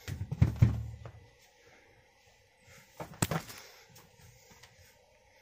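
Muffled thumps and bumps as a kitten jumps and scrambles on an upholstered ottoman chasing a feather wand toy, mixed with handling noise, then a single sharper knock about three seconds in.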